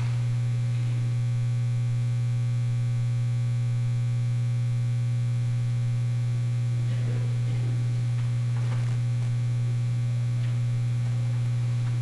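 Steady low electrical mains hum, with a few faint brief sounds about seven to nine seconds in.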